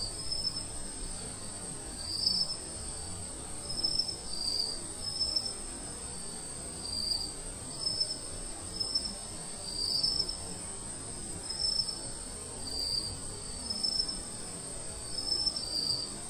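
Insects: a steady high-pitched buzz with short, high chirping notes repeating about once a second, over a low outdoor rumble.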